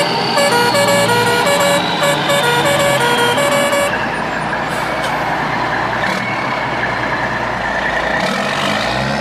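A truck horn playing a tune of held notes for about four seconds, then a steady truck engine rumble with no tune.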